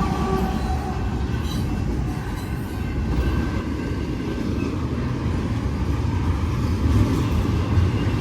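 Intermodal freight train's cars rolling past: a steady low rumble of steel wheels on rail. A few faint pitched tones die away just after the start.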